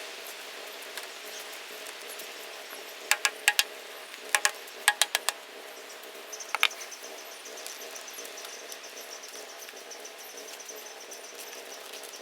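A run of about ten sharp clicks and knocks in quick clusters, then a high, fast-pulsing chirp held for several seconds, over a steady low hum.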